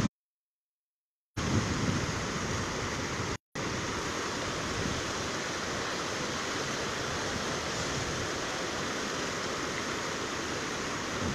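Swollen river in flood, its water rushing with a steady, even hiss. The audio cuts out completely for about the first second and again for a moment about three and a half seconds in.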